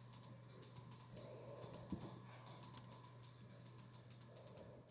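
Faint, rapid clicking and scratching as a small dog is given a belly rub and paws at the hand, its claws and paws moving against the hand and the carpet, over a low steady hum; one louder knock about two seconds in.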